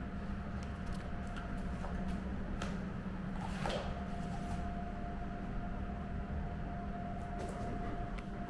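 A steady mechanical hum with a thin constant whine runs through the room, while dogs moving about on vinyl floor mats among their toys make a few soft taps and knocks, the loudest about halfway through.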